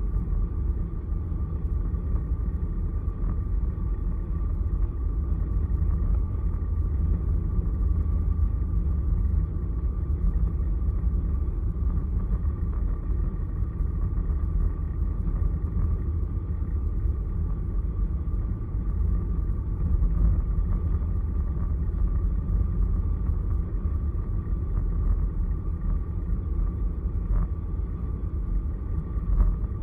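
Steady low rumble of a car travelling at highway speed: road and wind noise with a faint steady whine over it.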